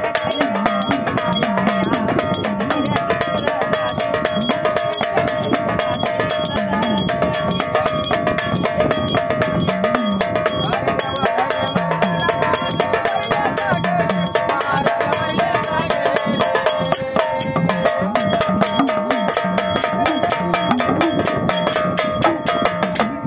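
Marathi devotional folk song in the Parasrami style, a woman singing over steady hand percussion and small jingling bells or cymbals keeping a fast even beat.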